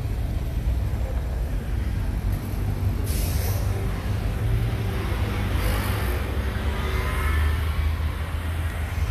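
Low rumble of motor vehicle engines in street traffic, with two short hisses, about three and six seconds in.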